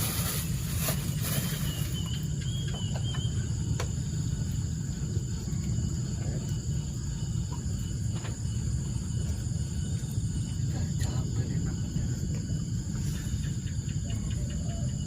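Outdoor ambience: steady high insect chirring over a continuous low rumble, with a few faint clicks.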